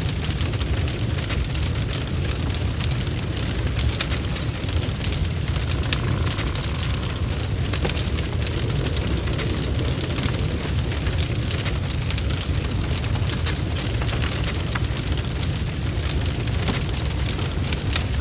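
Wood fire burning, with a steady low rumble of the flames and a constant scatter of sharp crackles and pops.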